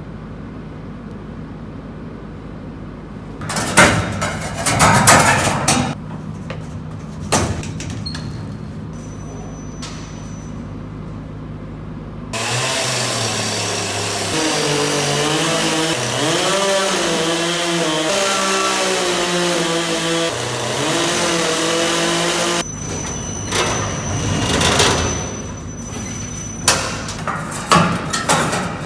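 Sawmill engine running steadily, with a few loud metallic knocks and clatter as the blade is taken off and the mill is brought back to its starting position. Partway through, a louder sound with a wavering pitch takes over for about ten seconds, then cuts off suddenly, and the hum and knocks return.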